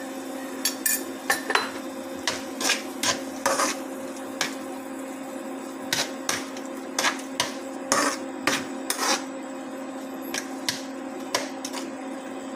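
Metal spoon knocking and scraping in a cooking pan while vegetables are stirred: irregular sharp clicks and scrapes, some in quick clusters, over a steady low hum.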